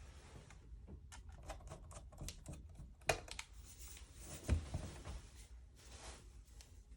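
Scattered light clicks and taps from handling a laptop's bottom case while it is fitted back on. Two sharper knocks come about three seconds and four and a half seconds in.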